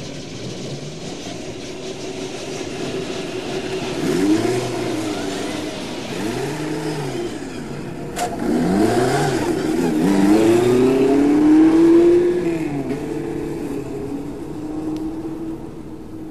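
An engine idling and being revved several times, each rev rising and falling in pitch over about a second. A sharp click comes about eight seconds in, the revs are loudest just after it, and the engine settles back to a steady idle near the end.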